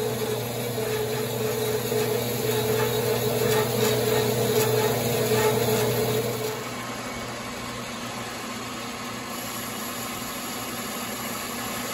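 Horizontal metal-cutting bandsaw running, its blade sawing through a round metal shaft to cut it to length with a steady hum. About six and a half seconds in, this gives way to a quieter, steady Logan 922 lathe running as a cutting tool faces the end of the shaft.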